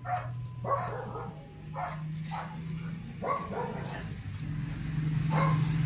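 Pet dogs yipping and barking excitedly in short, separate bursts, about seven in all, as they beg to be fed.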